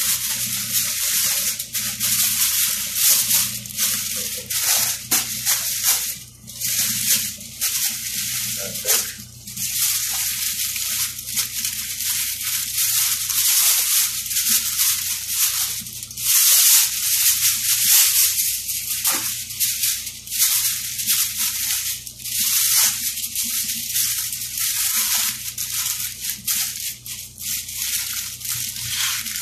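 Aluminium foil crinkling and rustling as gloved hands fold and crumple it tightly around a parchment-wrapped joint of lamb, in continuous uneven bursts.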